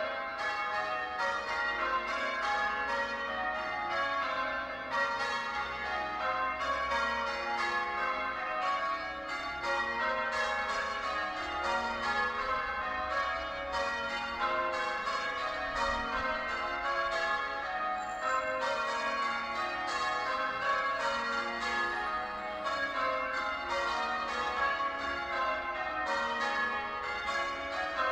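The tower bells of Sheffield Cathedral being rung in English change ringing: a steady, even run of overlapping strikes, several a second, each bell ringing on under the next.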